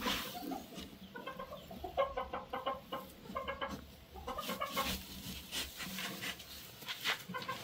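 Chickens clucking in short repeated runs of notes, with dry hay rustling as it is pushed aside.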